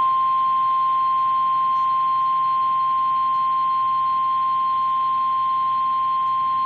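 NOAA Weather Radio's 1050 Hz warning alarm tone from a Reecom R-1630 weather radio: one steady, unbroken high tone that starts abruptly. It signals that a severe weather warning follows.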